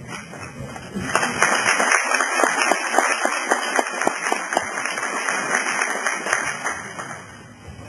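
Audience applauding, a dense patter of many hands clapping that starts about a second in and dies away near the end.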